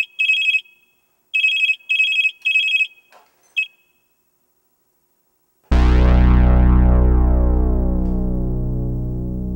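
A mobile phone giving high electronic beeps in quick groups of three, stopping after one last short beep a few seconds in. After about two seconds of silence, music comes in suddenly and loud: a deep sustained chord that slowly fades.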